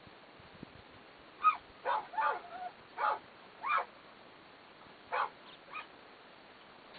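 A dog's short yips and barks, about seven in irregular groups, with a faint steady background between them.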